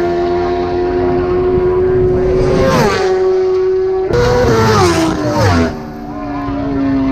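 Racing motorcycles passing close by at full speed, one after another. Each engine note holds high as the bike approaches, then drops sharply in pitch as it goes past: once about three seconds in, and again near the end after a second bike arrives suddenly.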